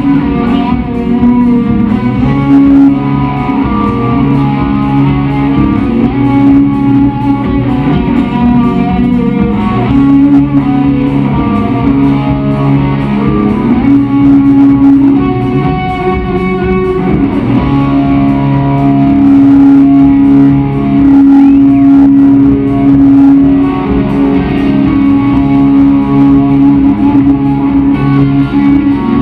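Rock band playing live at full volume, led by electric guitar over bass and drums.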